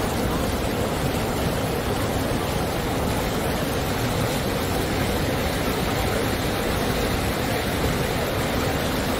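Fast, muddy river water rushing and churning over the riverbed in standing waves, a loud, steady rush close to the microphone.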